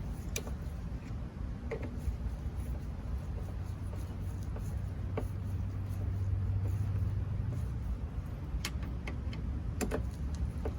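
Faint clicks and taps of a hand screwdriver turning the two Phillips screws that draw the door handle into the door, over a low steady hum that swells in the middle.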